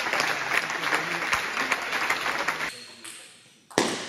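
Table tennis hall ambience: background chatter with scattered sharp clicks of ping-pong balls. It fades out about two-thirds of the way in, and a single sharp ball click comes just before the end.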